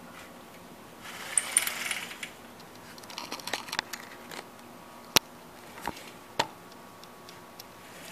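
Horizontal window blinds being raised by the cord: a brief rattling rush of the slats about a second in, followed by scattered sharp clicks and taps from the slats and cord lock.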